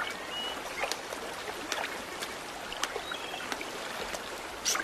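Shallow stream water babbling and trickling over stones, with scattered small splashes and a sharper splash near the end. Two faint, short high notes sound about half a second in and about three seconds in.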